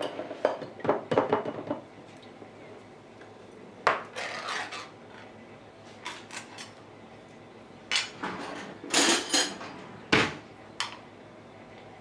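Metal food tin clinking and knocking against a ceramic mug and the countertop while pineapple juice is poured from the tin into the mug. The sharp clicks come in several clusters, with a heavier knock near the end.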